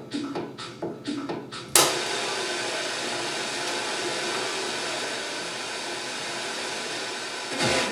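SABA Lindau 12 valve radio's loudspeaker: the music it is playing fades, there is a sharp click about two seconds in, and then a steady hiss of static as the dial is turned between stations. Music comes back in right at the end as a station is picked up.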